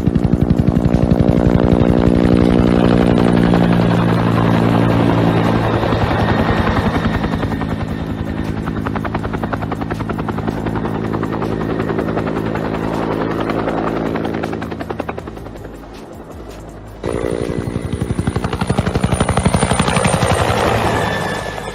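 Mi-8 helicopter flying, its rotor blades chopping in a rapid, steady beat, with an abrupt cut to a louder stretch about seventeen seconds in.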